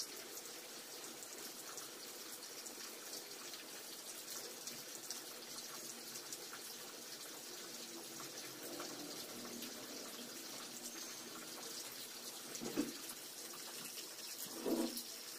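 Coloured pencils scratching on paper as an area is shaded: a steady rubbing hiss made of many small strokes. Two louder short bumps come near the end.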